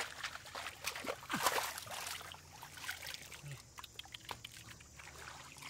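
Water splashing and sloshing, with a quick run of splashes in the first two seconds, then fainter, scattered splashes.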